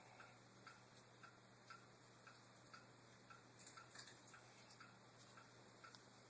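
Faint, steady ticking, about two ticks a second, with a few light clicks near the middle.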